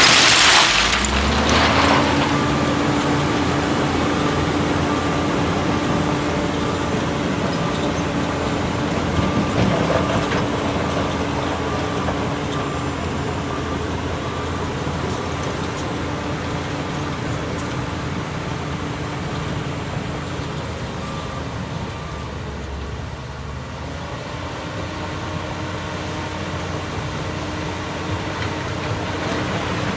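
Heavy diesel engine running steadily after its revs drop in the first second or two. It grows gradually quieter and then comes up slightly again near the end.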